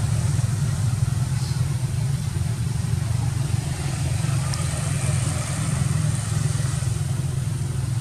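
Steady low outdoor rumble with an even hiss above it, unchanging throughout.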